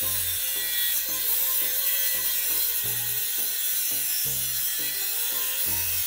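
Dremel rotary tool's cutoff wheel grinding through a wire coat hanger: a steady, high-pitched grinding whine.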